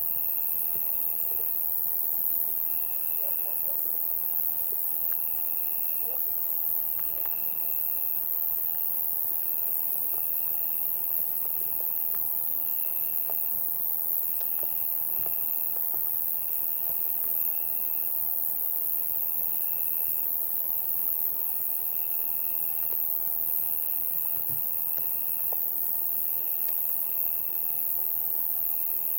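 Summer-night insect chorus: a steady, very high-pitched insect buzz with a lower chirping trill that comes in pulses about a second long, one after another, with short gaps.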